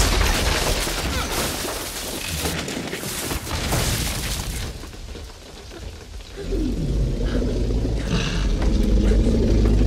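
Film sound of a wooden hut crashing and splintering apart under a Tyrannosaurus rex's attack in heavy rain. After a short lull, about six seconds in, comes a deep, rumbling growl from the T. rex.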